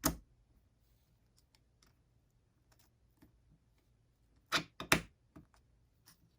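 Sharp clicks and light taps of small parts being handled while fitting the tip to a TS100 soldering iron with an Allen wrench: one click at the start, faint ticks, then two loud clicks close together about four and a half seconds in.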